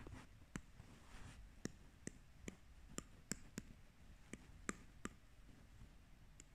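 Apple Pencil tip tapping on an iPad's glass screen: about a dozen faint, sharp clicks at irregular intervals.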